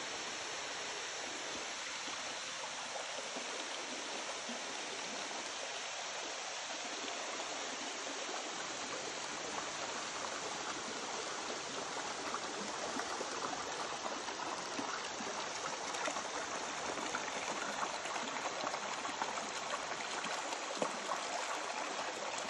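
Shallow Coliban River water running over and between rocks: a steady rush of flowing water that grows a little louder, with small splashes, in the second half.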